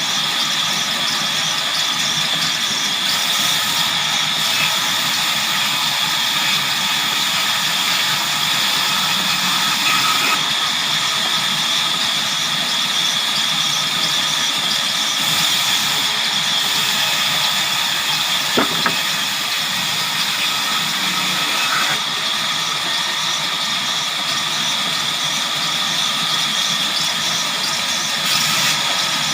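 Sawmill saw running steadily with a constant high whine and hiss, with two brief knocks, one about two-thirds of the way through and one near the end.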